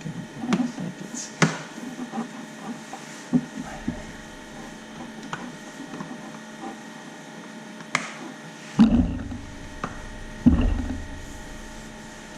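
Dash trim pieces being handled and pressed into place: scattered clicks and knocks, with a few louder thuds about a second and a half in and again from about eight to ten and a half seconds, over a faint steady hum.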